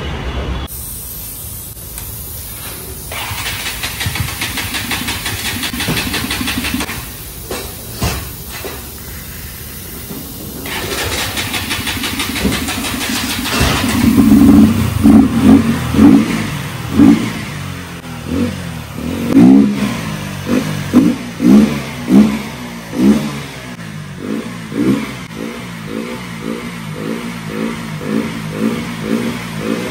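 KTM motorcycle engine in the service workshop, revved in a run of sharp throttle blips from about halfway through, each rising and falling in pitch. The blips become smaller and quicker near the end. Before the blips there is steadier engine and workshop noise.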